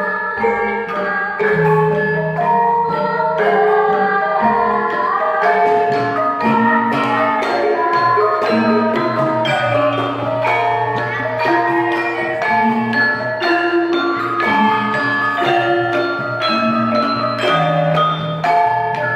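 Javanese gamelan ensemble playing a lancaran piece: bronze bonang and saron chime the melody in steady struck notes, with kendang drumming.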